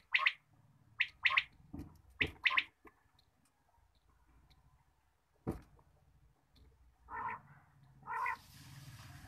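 Caged quail calling: three pairs of short, sharp notes about a second apart, then after a pause two lower, harsher calls near the end. A single click comes about halfway through, and a steady hiss begins just before the end.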